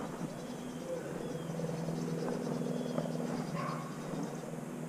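A low, steady droning hum, with a few faint high chirps over it.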